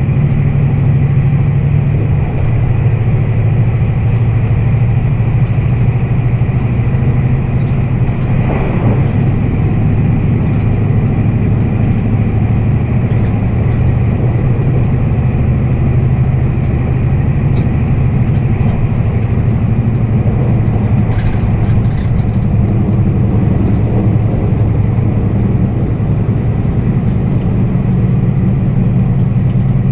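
Meitetsu 1200 series electric train running at speed, heard from inside the carriage: a steady rumble of wheels and motors with a faint steady whine above it. A short cluster of sharp clicks comes about two-thirds of the way through.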